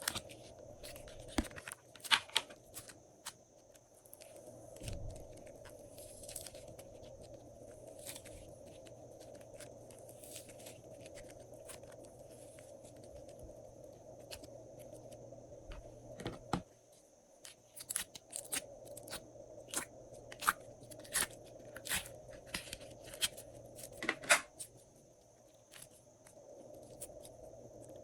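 Glossy slime being worked by hand: sharp sticky clicks and snaps as it is pressed and stretched, scattered at first and coming thick and fast in the second half, over a faint steady hum.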